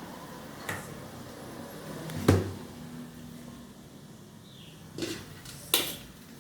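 Kitchen clatter of cookware and utensils being handled: a few separate knocks, the loudest a dull thud about two seconds in, and two sharper clacks near the end, over a steady low background hum.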